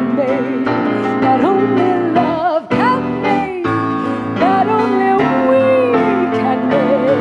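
A woman singing long, wavering notes with vibrato into a microphone over live instrumental accompaniment, with a brief break about two and a half seconds in.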